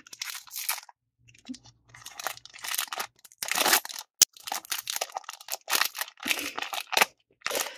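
Foil card booster pack wrapper crinkling and tearing as it is pulled open by hand, in irregular crackling bursts with a single sharp snap about four seconds in. The wrapper is hard to open.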